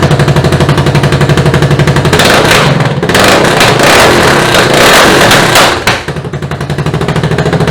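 2022 Kawasaki KLR650's single-cylinder engine running very loud through an open header with no muffler, firing in an even, rapid pulse. It gets louder and rougher for stretches in the middle, then settles back to a steadier idle.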